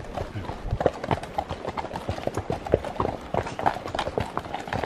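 Several horses walking on a dirt forest trail, their hooves clip-clopping in an uneven run of many overlapping hoofbeats.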